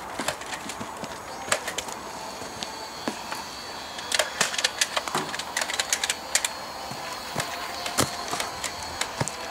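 Toy foam-dart blaster clicking: scattered sharp clicks and taps, with a dense rapid run of clicks about four seconds in that lasts a couple of seconds.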